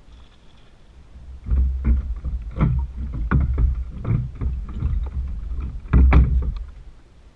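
A run of irregular knocks and thumps on a plastic fishing kayak's hull and deck, starting about a second and a half in, loudest about six seconds in, then stopping.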